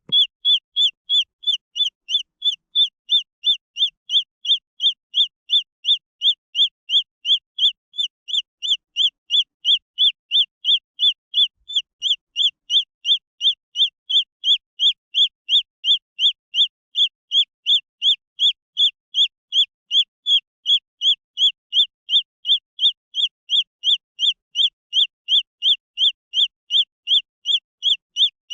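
Green junglefowl chick peeping: a single high, short note that drops in pitch, repeated very evenly about twice a second without a break.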